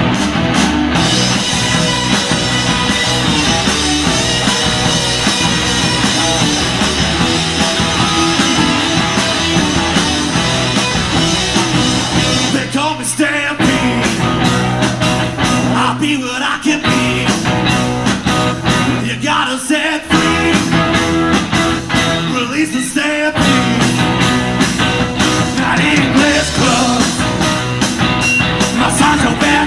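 Live rock band playing: electric guitars and drums with a singing voice. The full band drops out briefly four times in the second half before coming back in.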